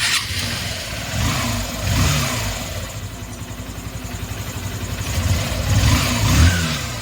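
Freshly overhauled Honda CB Shine 125 cc single-cylinder engine running, with the throttle blipped twice: the pitch rises and falls about a second in and again near the end.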